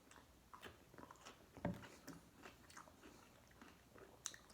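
A person biting into and chewing a garlic dill pickle: faint, irregular crunches, the loudest about a second and a half in.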